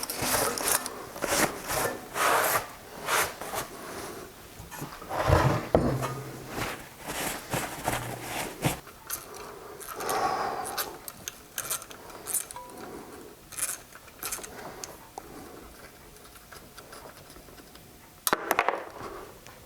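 Hand tools and metal engine parts knocking, clicking and scraping on a workbench as a Briggs & Stratton push-mower engine is taken apart, with one heavier thump about five seconds in.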